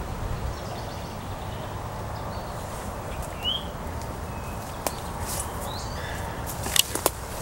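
Footsteps pushing through dense woodland undergrowth, with a steady low rustle and a few sharp snaps of twigs near the end. Faint bird chirps are heard in the middle.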